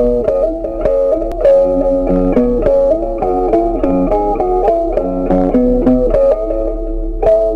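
Background music: an instrumental tune of plucked notes with a steady pulse.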